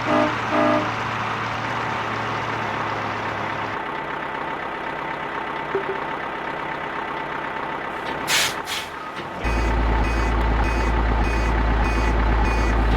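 Truck sound effects: an engine running steadily, a short double hiss of air brakes about eight seconds in, then reversing beeps about twice a second over a deep engine rumble.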